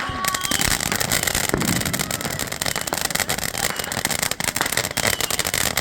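A "Girl's Best Friend" consumer firework fountain going off, starting about a third of a second in with a steady dense spray of rapid crackles and hiss that keeps going.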